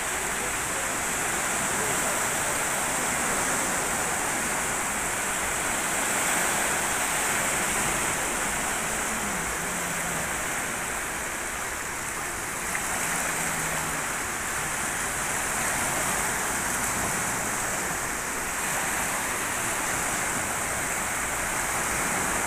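Sea surf washing onto the beach in a steady rush.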